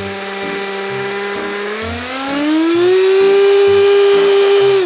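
Electric motors and propellers of a radio-controlled V-22 Osprey model whining steadily, then throttled up about two seconds in to a higher, louder whine that holds before dropping away at the end. The model stays on the ground: it doesn't lift off, short of power.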